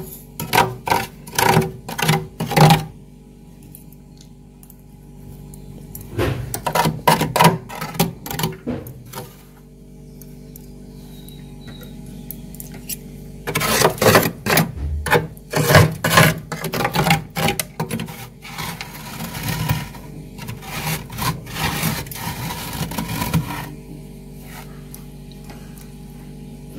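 Metal spoon scraping thick freezer frost off the walls of a freezer compartment, in four bursts of quick rasping strokes with pauses between, over a steady low hum.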